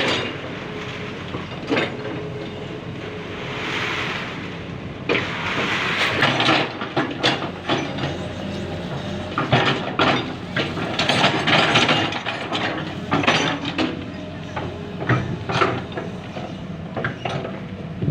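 Excavator at work clearing ground: the engine runs steadily under repeated clanks and knocks, with stretches of scraping and rustling from the bucket and debris.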